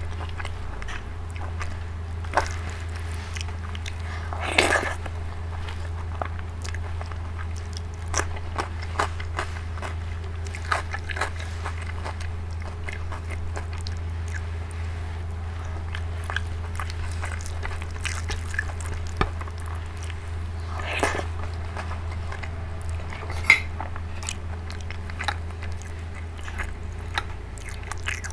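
Close-miked hand-eating of dal and rice: wet smacks and clicks of fingers mixing rice and dal on the plate, and chewing and biting in the mouth, with a few louder smacks scattered through. A steady low hum runs underneath.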